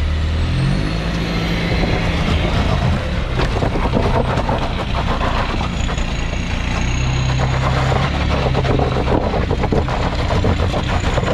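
Off-road 4x4 engine running and being revved, its pitch stepping up and down.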